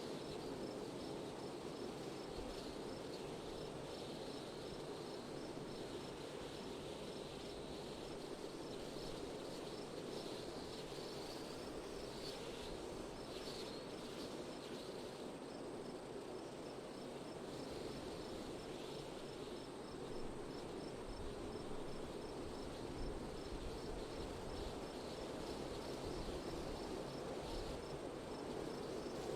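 Steady wind blowing, with an insect chirping in an even, repeating rhythm of several short high chirps a second.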